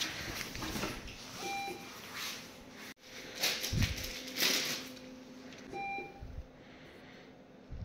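Two short electronic beeps about four seconds apart, over rustling of clothing and bedsheets as a sleeve is pushed up on a hospital bed.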